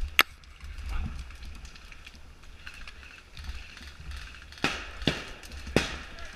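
Footsteps crunching through dry leaf litter and sticks on a woodland floor, with four sharp cracks: one just after the start and three close together in the second half, about half a second apart.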